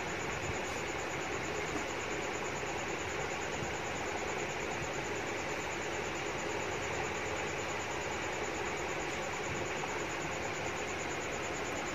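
Steady, even background noise like a running fan or distant traffic, with no distinct sounds standing out.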